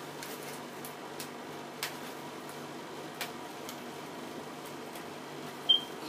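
Cardboard and plastic toy packaging being handled and opened: a few light clicks and taps, then one short, sharp high squeak near the end.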